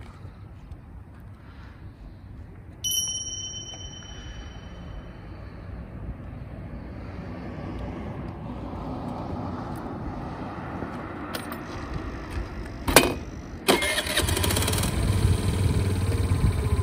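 A 50cc moped scooter's small engine starts about fourteen seconds in, after a couple of sharp clicks, and then idles steadily. A single short high-pitched ding sounds about three seconds in.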